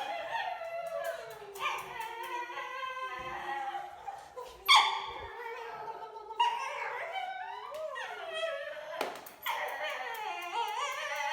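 A dog vocalising in a long run of drawn-out, howl-like moans and whines that slide up and down in pitch, broken by a few sharper yips. This is the grumbling, back-talking kind of protest that a dog makes when it is annoyed.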